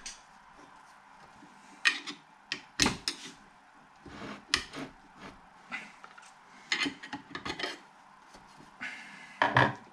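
Screwdriver and hands working on a compressor motor's housing: scattered clicks, taps and short scrapes of tool on metal and plastic, with a louder knock near the end.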